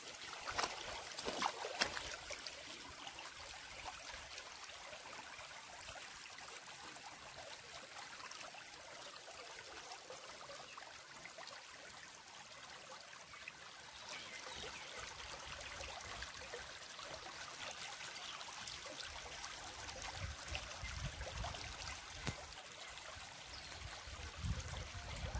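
Shallow river water trickling faintly over a rocky bed in a steady, even hiss, with a few low rumbles near the end.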